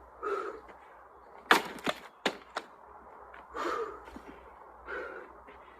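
An axe splitting firewood: one sharp, loud crack as the blade strikes the log, followed within about a second by three lighter knocks. Short breathy whooshes come before and after the strikes.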